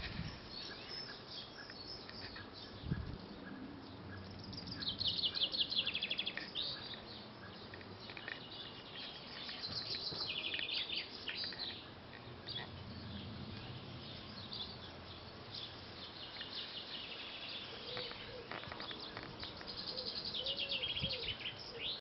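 Several garden songbirds singing, with quick high trills and chirped phrases coming every few seconds over a quiet background.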